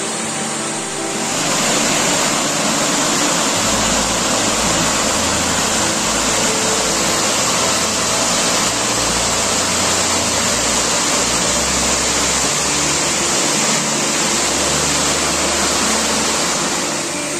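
Water pouring over a small stepped river weir into a rocky pool, a steady, full rush of falling water. A low rumble comes and goes under it from about four seconds in.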